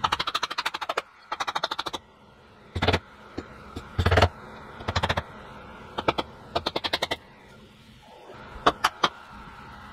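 Wooden mallet tapping an overly tight truss rod down into a guitar neck's truss rod channel: fast runs of light blows about ten a second, with a few heavier single blows between them. The channel is the wrong size for the rod, so the rod is being driven in like a wedge.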